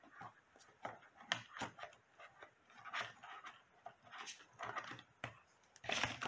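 Irregular soft scuffs and rustles of makeup brushes and cosmetic products being handled close to the microphone, with a louder rustle near the end.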